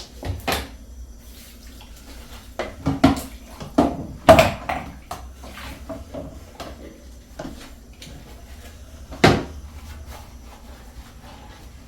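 Dishes clinking and knocking in a kitchen sink during washing-up, a scatter of sharp clatters over faint running water, the loudest about four seconds in and another about nine seconds in.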